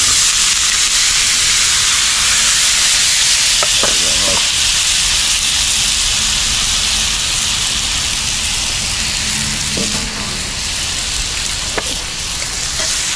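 Sliced bell pepper, carrot, onion, tomato and thyme sizzling loudly in hot oil in a frying pan, just after being tipped in; the sizzle eases a little in the second half. A few light clicks come from a fork stirring them.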